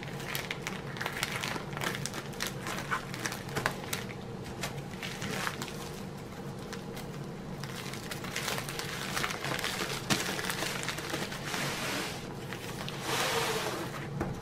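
Clear plastic packaging bag crinkling and rustling as it is snipped open with scissors and pulled off a rolled canvas, a run of short crackles with a longer, louder rustle about thirteen seconds in.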